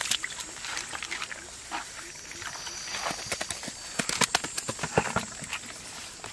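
Bare hands digging in wet mud and handling a catfish in a plastic basket: irregular clicks, scrapes and squelches, busiest about halfway through.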